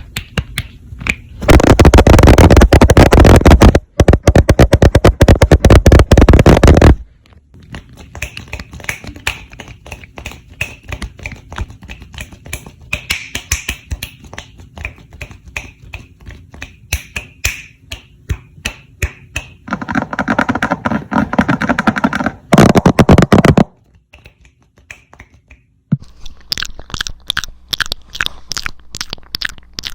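Close-miked ASMR hand and mouth sounds: long runs of rapid sharp clicks and taps, broken by two loud stretches of dense rubbing and scratching, about two seconds in and again around twenty seconds in, with a short lull near the end.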